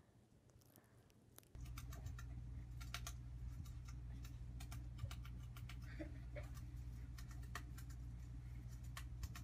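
Hamster nibbling food held in its paws: an irregular run of tiny sharp clicks over a steady low hum, starting about one and a half seconds in.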